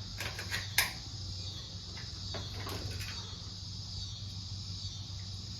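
Steady low hum with a faint hiss, broken by a few light clicks, the sharpest about a second in.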